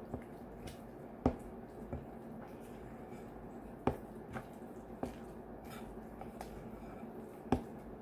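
A spoon stirring wet bread dough in a glass bowl: soft squishing, broken by a few sharp clicks as the spoon knocks against the glass, the loudest about a second in, near the middle and near the end.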